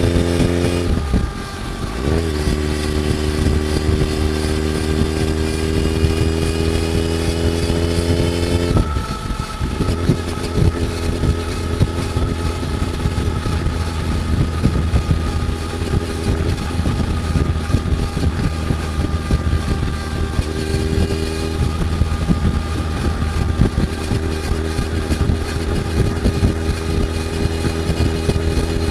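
Suzuki Hayabusa GSX1300R's inline-four on the move through a Tech Serfu carbon silencer, its note climbing steadily under acceleration. It drops sharply at a gear change about a second in and again about nine seconds in, then settles to a steadier, less tonal cruise. The drive chain is loud over the exhaust.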